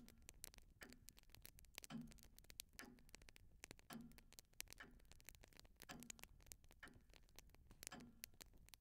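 Faint clock ticking steadily about once a second, with lighter scattered clicks between the ticks.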